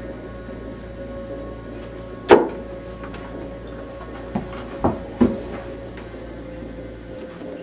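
Objects being knocked about in a room: one loud sharp bang a little over two seconds in, then three lighter knocks a couple of seconds later, over a steady low hum with faint held tones.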